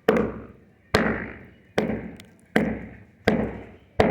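Steady hammer blows during plumbing work, six evenly spaced strikes about one every 0.8 seconds, each trailing off briefly.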